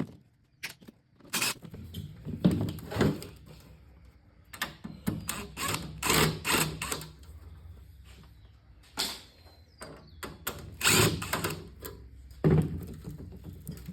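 Irregular clanks, thunks and rattles of a cheap Chicago Electric welder being pulled apart by hand to get at its transformer, over a low steady hum.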